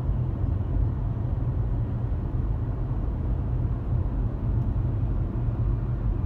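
Steady low rumble of a car heard from inside the cabin, the engine and road noise of the car running.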